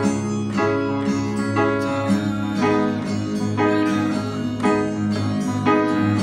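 Acoustic guitar strummed in a steady rhythm, about two chord strokes a second.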